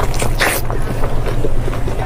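Close-miked eating sounds of a person biting and chewing fatty meat: a quick run of short wet clicks, with a brighter, louder bite about half a second in, over a steady low hum.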